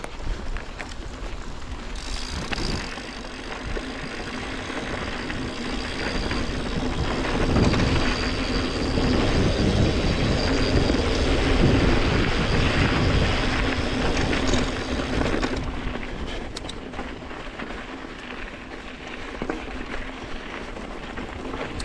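Yeti SB150 mountain bike ridden along a dirt singletrack trail: a steady rush of tyre and ride noise that grows louder through the middle and eases off near the end.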